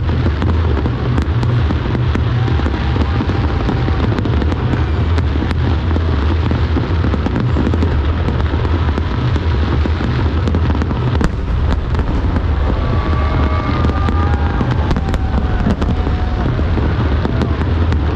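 Fireworks display in full barrage: a dense, unbroken run of booming shell bursts with sharp crackles throughout.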